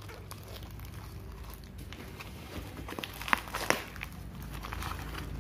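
Taped cardboard shipping box being pulled open by hand: scattered crackling of cardboard and packing tape, with two sharp snaps close together about three seconds in.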